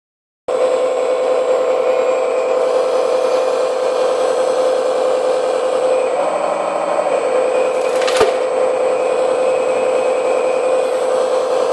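RC4WD hydraulic RC excavator starting up and running with a steady mechanical hum, its tone shifting briefly for about a second partway through, with one sharp click a little after 8 seconds.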